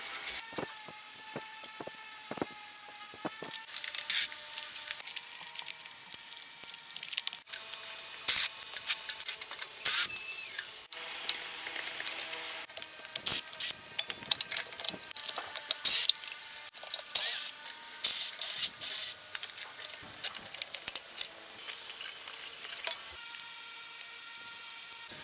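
Short hissing bursts of an aerosol spray, repeated many times and thickest in the middle, among light clicks and clinks of tools, over soft background music.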